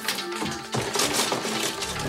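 Small metal and glass cosmetic items clinking and clattering in a vanity drawer as it is rummaged through, under background music.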